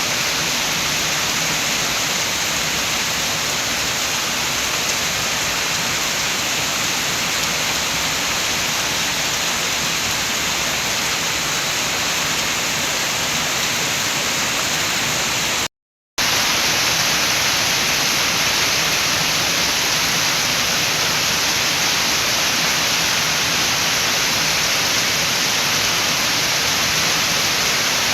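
Steady heavy rain with wind, a dense even hiss. It cuts out completely for a split second a little past halfway, then carries on unchanged.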